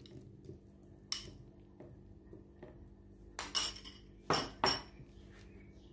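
A metal spoon clinking and scraping against a glass bowl as cubed mango is spooned out, with a sharp clink about a second in and a cluster of louder clinks and knocks of dishes past the middle.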